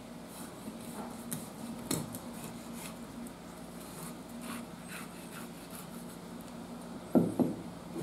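Kitchen knife slicing and scraping along a black sea bream fillet on a cutting board: scattered faint scrapes and ticks, then two sharper knocks close together near the end.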